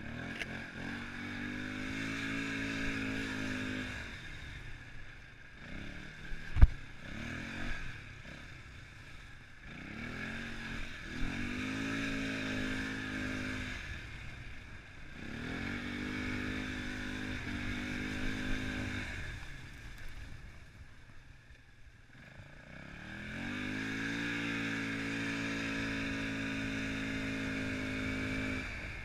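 ATV engine revving up and holding steady under throttle, then easing off, four times over, with quieter coasting between. A single sharp knock sounds about six and a half seconds in.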